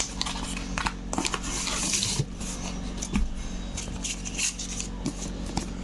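A cardboard parcel and its plastic packaging being handled and opened by hand: irregular rustling and sharp clicks, with a short scratchy tearing noise about a second and a half in.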